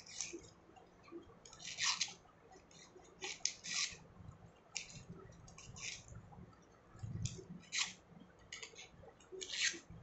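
Small scissors snipping slits into the edge of a paper circle: about a dozen short snips at uneven intervals.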